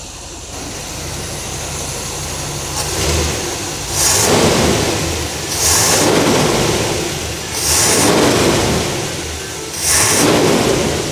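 A 1965 Corvette C2's stock 327 small-block V8 with a Carter carburetor, idling and blipped by hand at the carburetor four times, about two seconds apart. Each rev rises and falls back with a hiss, and the engine is smooth and in very good condition.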